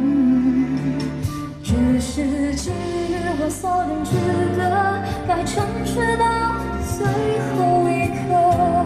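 A woman singing a slow Mandarin pop ballad into a microphone over band accompaniment with drum hits.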